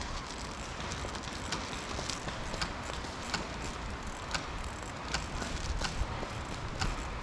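Footsteps of a person walking, sharp steps about one to two a second over a low rumble.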